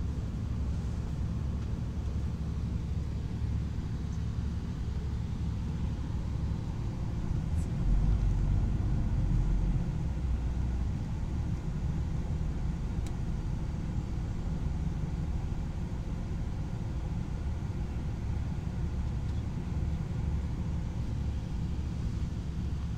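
Steady low rumble of a city bus's engine and road noise heard from inside the passenger cabin, swelling louder about eight seconds in.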